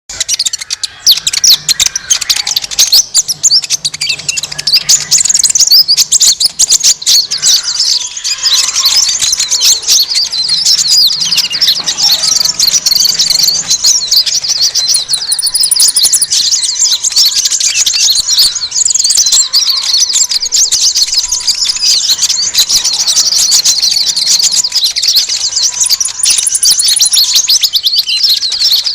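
Dense, busy chatter of many small birds chirping and twittering all at once, used as a lure call to draw in small birds such as sunbirds.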